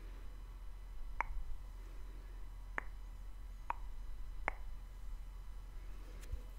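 Mouth clicks made close to the microphone: four sharp, separate clicks spaced roughly a second apart.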